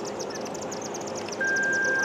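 Insects chirping rapidly in a fast, even run. About one and a half seconds in, a louder steady high-pitched tone starts and holds.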